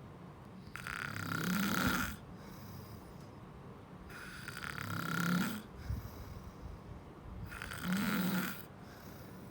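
Snoring: three long, rasping snores, roughly three seconds apart, with quiet breathing between them.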